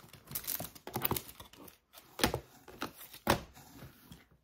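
Plastic packaging crinkling and rustling as supplies are rummaged through in a box, in irregular bursts with the loudest rustles about two and three seconds in.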